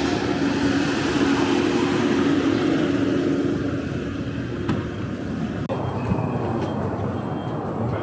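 Steady outdoor street noise with a low hum that fades away over the first few seconds. The background changes abruptly a little past halfway through.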